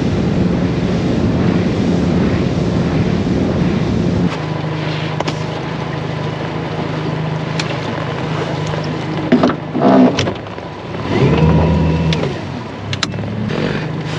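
Boat motor running steadily, then throttled back to a lower, quieter idle about four seconds in. Near the end there are a couple of louder surges, one rising and falling in pitch like a brief rev, as the boat is manoeuvred into a new spot. The motor is still running at the end.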